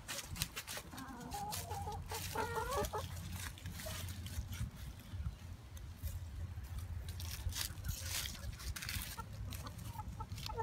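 Chickens clucking: a few short clucks about two seconds in and more starting near the end, over crackling and rustling in dry fallen leaves.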